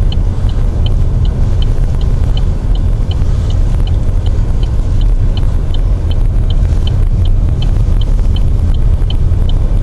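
Car cabin rumble of a vehicle driving along a plowed, snow-covered road, steady and low. A faint, regular high tick repeats about three times a second over it.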